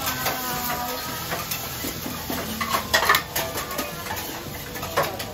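Metal spatulas and utensils clinking and scraping on a flat iron griddle and against steel pots, with sharp clanks about three seconds and five seconds in, over a low kitchen background.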